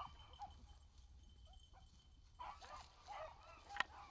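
Beagles baying faintly while running a rabbit, with short bawling calls near the start and again from about two and a half seconds in. A single sharp snap comes near the end, like brush or a twig breaking.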